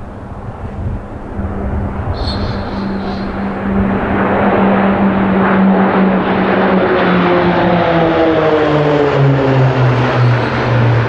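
A formation of six Pilatus turboprop trainers flying past, their engine drone growing louder as they approach. The pitch then falls steadily as they pass overhead.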